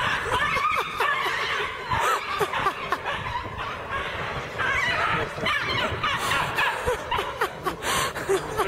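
People laughing.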